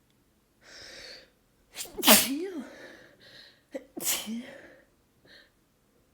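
A person sneezing twice in quick succession, each sneeze preceded by a sharp breath in, the first the louder; a short sniff follows about a second after the second sneeze.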